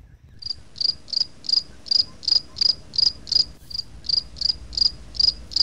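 Cricket chirping, loud, evenly spaced chirps about three a second that start and stop abruptly: the stock 'crickets' sound effect marking an awkward silence when no answer comes.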